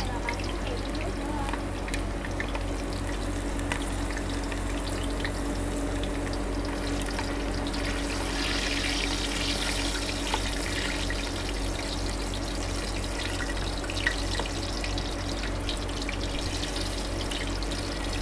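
Fish balls deep-frying in a pot of hot oil as they are stirred with long chopsticks: a steady sizzle, a little louder for a few seconds in the middle, over a low steady hum.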